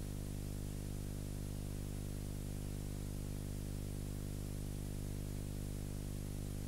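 Steady electrical hum with a constant hiss over it, unchanging throughout: the noise of an empty sound track on a transfer of silent film.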